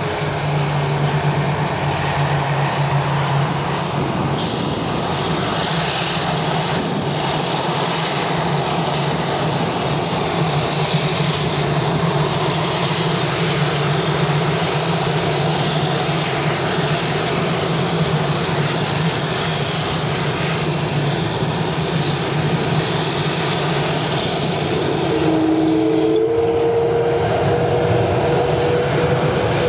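Rolls-Royce Trent 1000 turbofans of a Boeing 787 running at low thrust as the jet taxis, a steady jet rumble with a thin high whine. Near the end the whine drops out, the engine note shifts upward and the sound grows a little louder.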